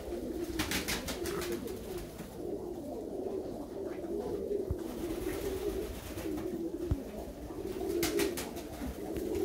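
A flock of Körös tumbler pigeon cocks cooing without pause, many voices overlapping. Brief bursts of rapid sharp clicks come about half a second in and again near the end.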